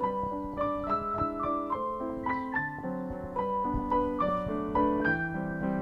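Background piano music: a gentle keyboard melody of held notes, changing every fraction of a second.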